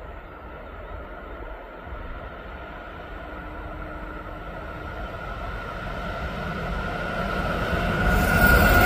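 Freight train hauled by two Siemens Class 189 electric locomotives approaching, its rumble and rail noise growing steadily louder, with a steady high whine over it. Near the end the locomotives draw close and the sound grows much fuller and brighter.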